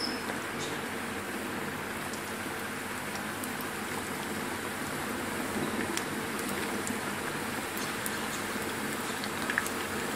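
Potato spring rolls deep-frying in hot oil: a steady sizzle with scattered small pops and crackles.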